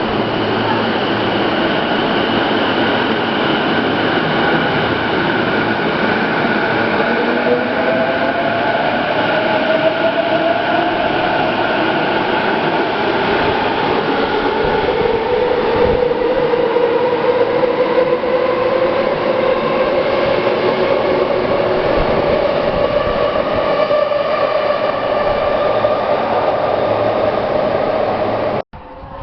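Electric commuter train in an underground station, its motors whining with a pitch that rises slowly as it speeds up, over the noise of the wheels and cars. The sound cuts off suddenly near the end.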